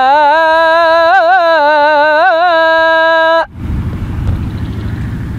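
A male Quran reciter holds a long, ornamented note in maqam Kurd on the drawn-out final vowel of "yashā'", with melodic turns in the middle. The note cuts off suddenly about three and a half seconds in, and a steady low rumbling noise follows.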